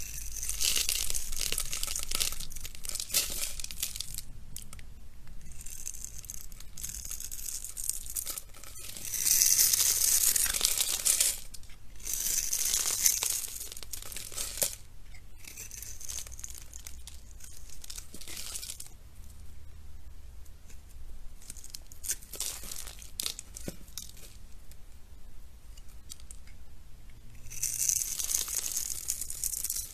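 Utility-knife blade scraping and cutting into dry bar soap, with small scored cubes of soap crumbling off in crisp, crackly bursts. It comes in louder stretches of a few seconds, with quieter scraping between.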